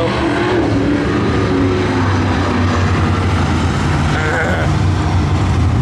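Several dirt-track UMP Modified race cars' V8 engines running together in a steady low drone, with engine pitch falling in the first couple of seconds.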